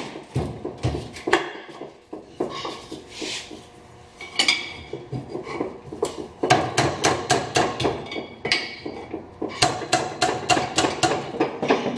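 Steel pry bar clinking and scraping against the cast differential case as the two case halves of a Land Cruiser front differential are levered apart at the pry lugs. The sharp metallic clinks come in quick runs of about five a second, with a quieter spell about two to four seconds in.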